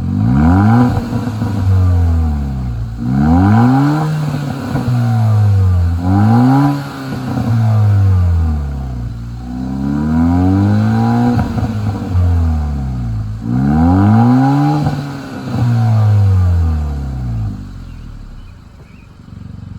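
2021 Kia Forte GT's turbocharged 1.6-litre four-cylinder, through its stock sport-tuned exhaust, blipped repeatedly in free revs about every three seconds, with crackles and pops as the revs fall. It settles back toward idle near the end.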